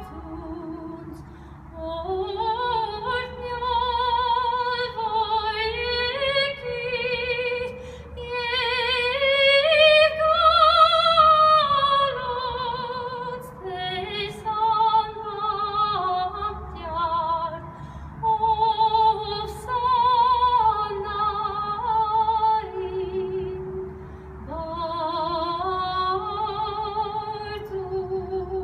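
Background music: a slow melody sung by a high female voice in long, wavering notes with pitch glides, over a soft low accompaniment.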